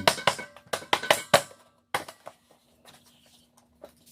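A quick run of sharp metallic taps and clinks in the first second and a half, then a few scattered taps: an air compressor's motor being tapped loose so it slides out of its housing. A faint steady hum underneath.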